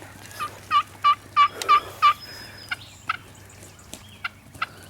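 Wild turkey calling: a quick run of about six loud, sharp notes over a second and a half, then a few fainter scattered notes.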